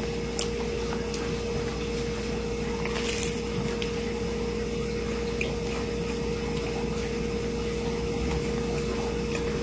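A steady machine hum with one constant tone runs throughout. About three seconds in comes a short crunch as a grilled panini is bitten, followed by faint chewing.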